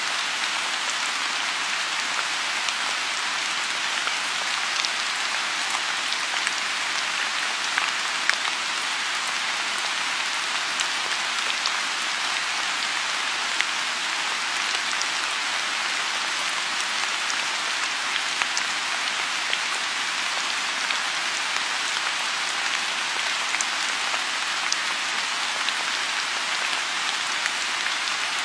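Steady rain falling on a pond, a dense even hiss with scattered individual drop ticks.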